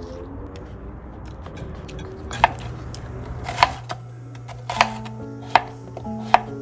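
A knife cutting onion and Korean zucchini on a cutting board, starting about two seconds in: five sharp knocks of the blade on the board, roughly one a second, over light background music.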